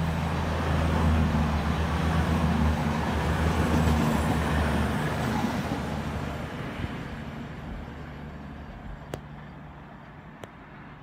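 Diesel passenger train running past the platform: a low engine hum and wheel-on-rail roar build up, then fade steadily as it moves away. Two faint sharp clicks near the end.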